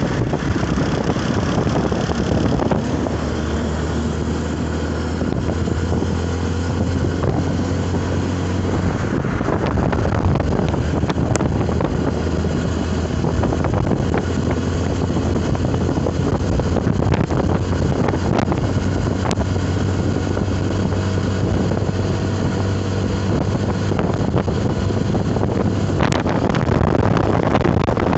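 Motor vehicle engine running steadily with road noise and wind on the microphone.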